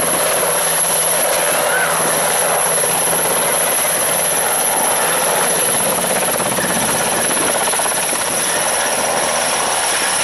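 NH90 military helicopter's twin turboshaft engines and main rotor at take-off power as it lifts off and climbs away low: a loud, steady rush with a high turbine whine over it.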